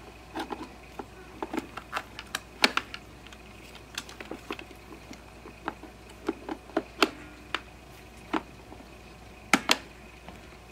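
Hard plastic clicks and knocks, irregular, as a Fisher-Price Imaginext Batman Command Center toy and its remote are handled and the remote is hooked onto its mount. The loudest are a sharp click about two and a half seconds in and a quick pair of clicks near the end.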